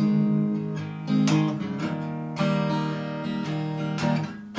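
Acoustic guitar strumming about four chords, roughly one a second, each left to ring: the closing bars of a song after its last sung line.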